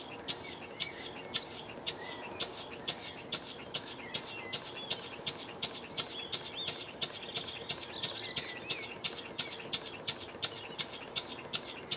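Small Wig-Wag model engine running slowly, just short of stalling under the load of a Baker fan, its exhaust and valve gear beating in an even ticking rhythm of about three beats a second.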